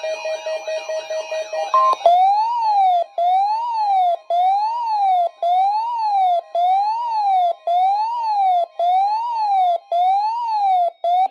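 Weather radio receiver's alert alarm set off by a Required Weekly Test: rapid chirping beeps for about two seconds, then a loud siren-like tone rising and falling about once a second until it cuts off.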